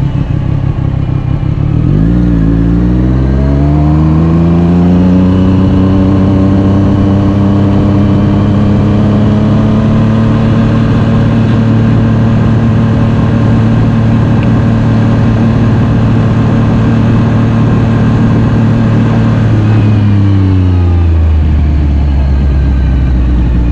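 A vehicle's engine heard onboard. It revs up about two seconds in, holds a steady pitch for a long stretch, then drops near the end as the vehicle slows.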